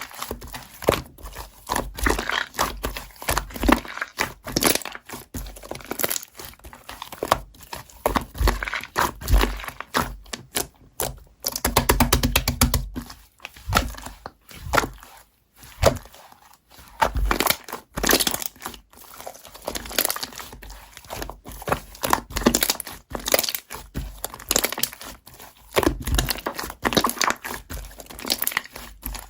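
Slime being squished and poked by hand, giving an irregular run of crackling pops and clicks, with a quick dense rattle of clicks about twelve seconds in.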